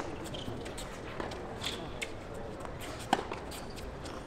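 Tennis rally on a hard court: a racket strikes the ball sharply about three seconds in, with a fainter hit or footfall earlier, short shoe squeaks and footsteps on the court surface, and faint voices behind.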